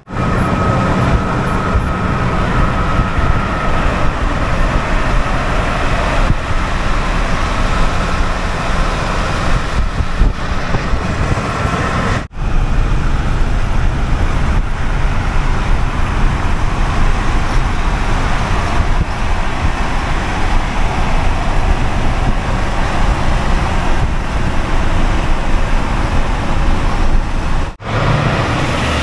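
Steady rush of wind and tyre noise from a truck travelling at highway speed, heard from inside the cab, broken by two brief dropouts, about twelve seconds in and near the end.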